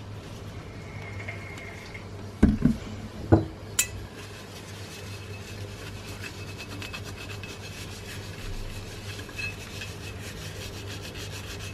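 An oil-soaked paper towel rubbed against a glass jar to scrub off label-glue residue: a faint, rapid rubbing. Before the rubbing starts there are a few knocks and a sharp clink as the oil bottle and jar are handled.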